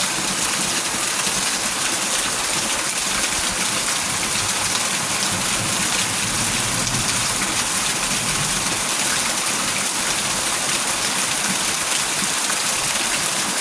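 Steady heavy rain falling, a constant hiss with fine pattering.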